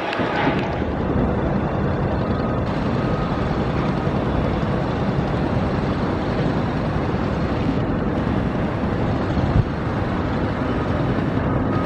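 Steady rumble of jet airliner engines running on the runway as the jet lines up for takeoff, with a short thump about ten seconds in.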